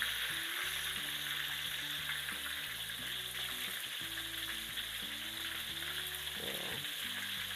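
Pandan-wrapped chicken wings deep-frying in hot oil in a wok, a steady crackling sizzle, with metal tongs stirring and turning them in the oil. Faint background music with held notes plays underneath.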